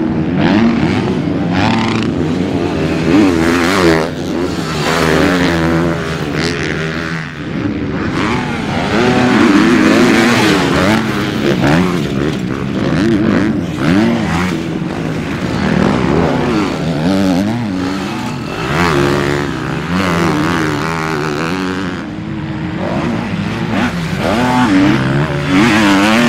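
Motocross dirt bike engines racing on a dirt track, revving up and down over and over as the riders accelerate and shift, with more than one bike heard at once.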